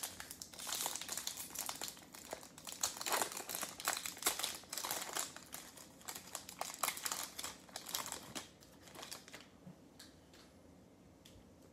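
Shiny foil wrapper of a Topps Chrome baseball card pack being torn open and crinkled by hand, a dense run of crackles. It dies down about nine seconds in, leaving a few light clicks as the stack of cards is handled.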